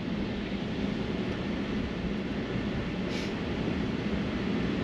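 Steady road and tyre noise heard inside the cabin of a Tesla electric car pulling away and driving on a snowy road, with a brief high hiss about three seconds in.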